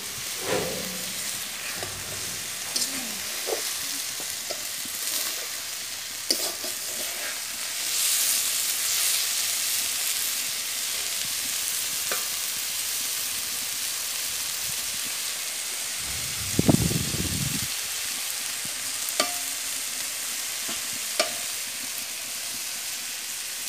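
Small fish, onion and spices sizzling in oil in an aluminium karahi while a metal spatula stirs and scrapes the pan with scattered light taps. This is the stage of frying the fish down in its spice paste. About seventeen seconds in there is a brief louder bump from the pan.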